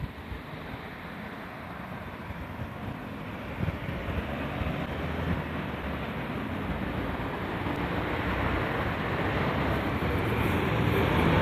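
Electric commuter train approaching on the line, its running noise growing steadily louder.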